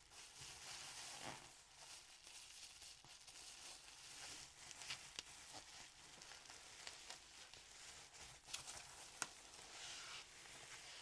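Soft rustling of packaging and handling of a Microsoft Surface Pro 7+ tablet, with scattered light clicks and taps and a sharper click about nine seconds in.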